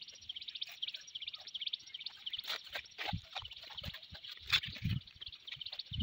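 A high, fast-pulsing chirring from a wild creature, holding steady and cutting off just after the end, with scattered clicks and low thumps of camera handling and footsteps over it, the sharpest click about four and a half seconds in.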